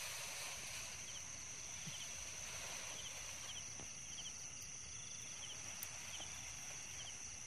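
Insects calling outdoors: a steady high drone with short chirps repeating over it.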